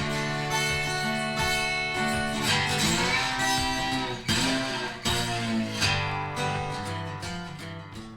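Background music: a guitar tune with strummed chords, fading down near the end.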